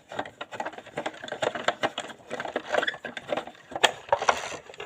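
Small hard plastic toy parts clicking and rattling as they are handled and fitted together, a quick irregular series of light knocks.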